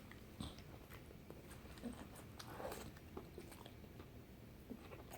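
Faint chewing of a mouthful of chicken sandwich, with soft scattered mouth clicks and smacks.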